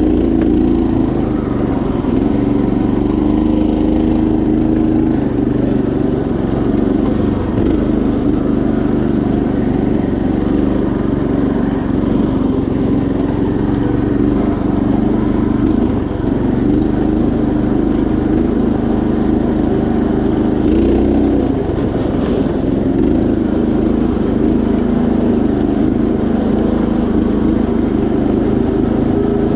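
Predator 212 single-cylinder four-stroke engine on a Craftsman GT5000 riding mower, running steadily at an even speed while the mower drives along.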